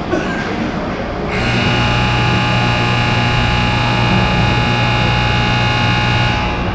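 Ice rink horn sounding one steady, unbroken blast for about five seconds, starting just over a second in, over the hum of the arena.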